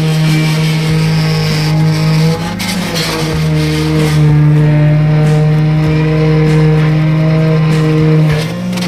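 Concrete pump's diesel engine running steadily at high revs, a loud even hum, its pitch sagging briefly under load about two and a half seconds in and again near the end before picking back up.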